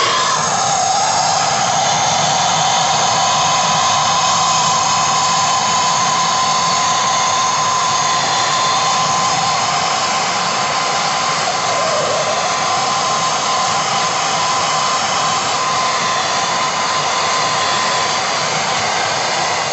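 Two Bernzomatic TS8000 hand torches burning at full flame, a loud, even hiss with a faint steady whistle in it, heating a wire-bound gold and silver billet toward fusion temperature.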